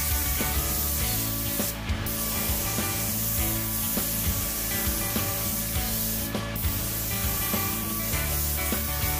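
Background music with a steady beat, over the hiss of a Sagola 3300 GTO HVLP spray gun laying down base coat, with two short sharp bursts of hiss.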